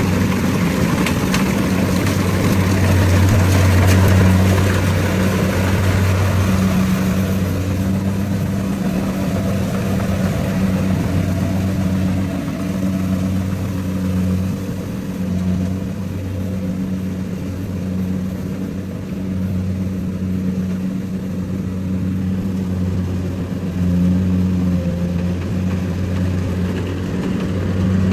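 Rice combine harvester's engine and machinery running steadily at a constant pace, with a low, even hum. The sound is busier and harsher for the first seven seconds or so, then settles.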